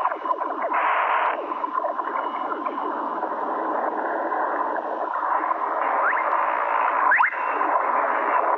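Cartoon underwater sound effect: dense, steady bubbling and gurgling, with two brief rising whistles about six and seven seconds in.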